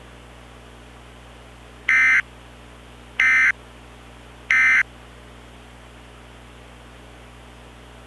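Three short bursts of Emergency Alert System SAME digital data tones, about a second apart: the end-of-message code that closes an alert broadcast. A steady low hiss and hum lies under them.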